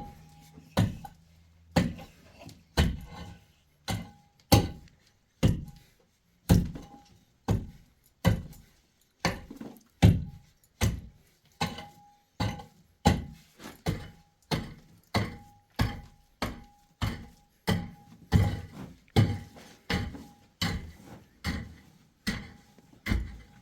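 A long series of heavy blows from a hand tool, each a dull thunk, landing in a steady working rhythm of a little over one a second.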